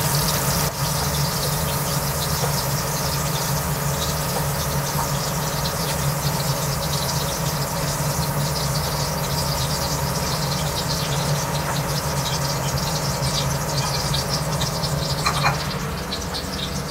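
Petai beans frying in hot oil in a steel wok: a steady crackling sizzle over a constant low hum, easing slightly near the end as the beans are taken out of the oil.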